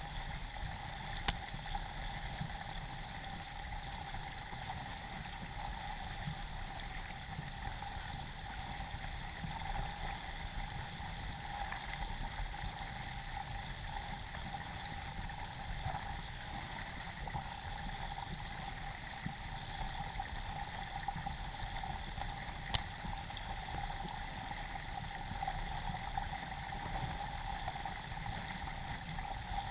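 Water rushing and splashing against the hull of an Epic Legacy XL K1 racing kayak and its paddle blades as it is paddled along a river, heard through a camera mounted on the boat as a steady, even wash.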